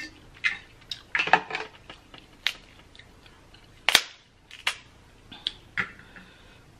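Sharp cracks and snaps of boiled crawfish shells being broken and peeled by hand, about eight in all, the loudest about four seconds in.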